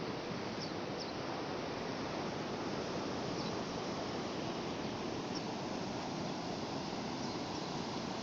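Sea surf washing on the shore as a steady, even rush, with a few faint brief high chirps now and then.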